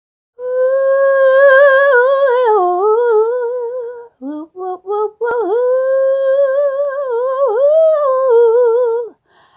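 A woman singing long held notes on an open vowel, with vibrato: a note of about three and a half seconds, a few short notes, then another long note of about four seconds.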